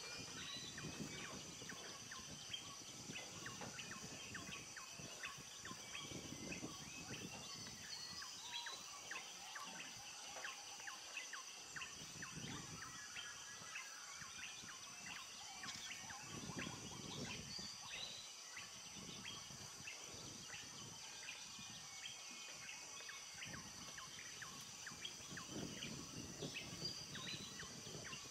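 Tropical rainforest dawn chorus: many birds calling in short chirps and whistles over a steady, high-pitched insect drone.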